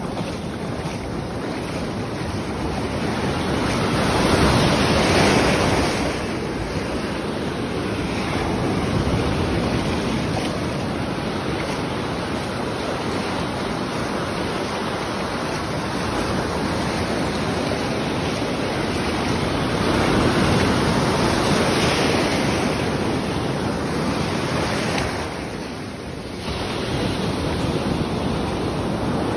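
Ocean surf breaking and washing up the beach, with wind on the phone's microphone. The surf swells loudest about five seconds in and again about twenty seconds in.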